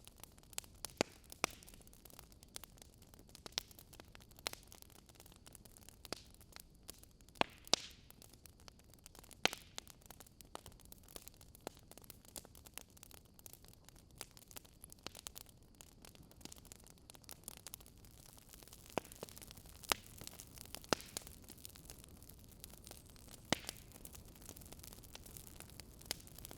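Wood fire crackling: irregular sharp pops and snaps from burning logs over a soft steady hiss, a handful of snaps louder than the rest.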